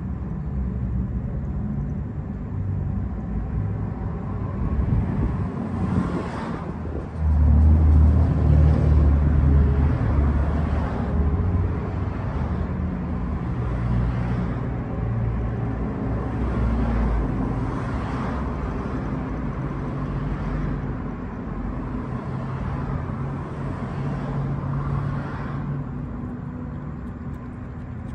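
Steady low rumble of a motor vehicle running, growing louder about seven seconds in and easing off again later.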